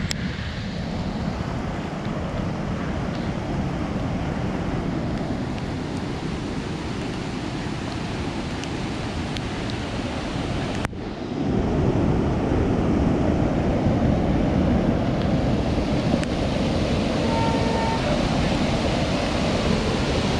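Rushing floodwater: a steady, loud rush of water with wind buffeting the microphone. It gets louder and deeper after a cut about eleven seconds in, where the swollen muddy stream pours over the road.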